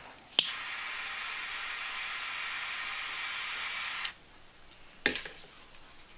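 A butane lighter clicks alight and its flame hisses steadily for about three and a half seconds, then cuts off; a single click follows about a second later. The flame is singeing the cut ends of nylon paracord to seal them.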